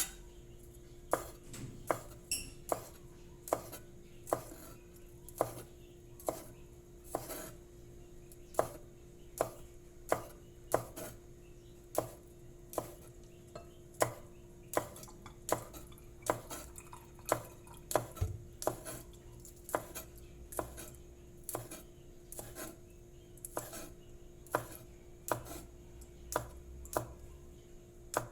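Sharp knife slicing spring onions on a cutting board: a crisp knock of the blade on the board at a steady pace, about one to two cuts a second.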